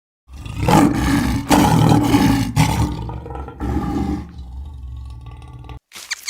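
A large animal roaring: several loud, deep roars that swell and fade over about five seconds, then cut off suddenly near the end.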